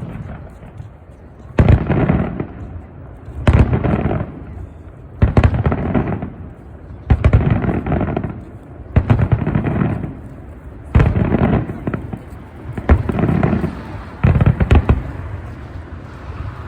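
Aerial firework shells bursting, a sharp boom about every two seconds, eight in all, each followed by about a second of rumbling crackle.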